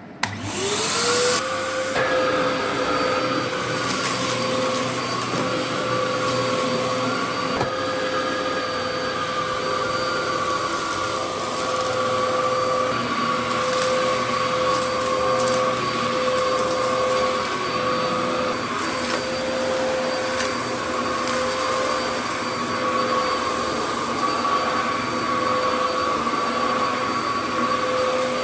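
Dyson DC07 All Floors upright vacuum cleaner switched on with a click, its motor whine rising to speed within about a second. It then runs steadily at full speed.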